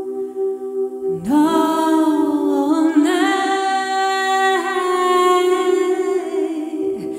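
A woman singing long held notes over a steady sustained drone. Her voice slides up into a note about a second in, holds and shifts between long tones, and breaks off near the end.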